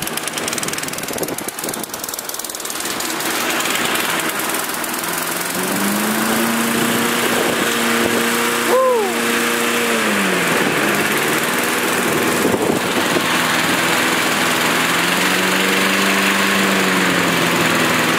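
Mountfield Emperor lawnmower's Briggs & Stratton petrol engine running. Its note twice climbs to a steady higher pitch for a few seconds and drops back, as the throttle lever is moved.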